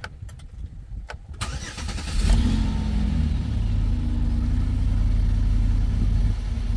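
A 2007 Chevy Equinox's V6 starting with a newly fitted serpentine belt: a couple of clicks, the starter cranks for about a second, then the engine catches and settles into a steady idle.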